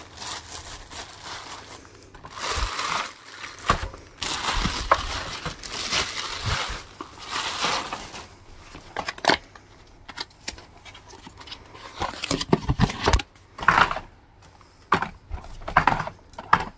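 Plastic packaging bag rustling and crinkling as a cordless wet-dry floor cleaner is unwrapped, followed in the second half by a series of sharp clicks and knocks from its hard plastic parts being handled.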